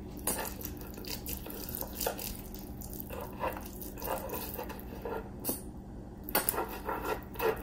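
Yellow mustard squirted from a plastic squeeze bottle onto a slab of pork ribs and smeared over the meat by hand: scattered soft, wet squelches and sputters.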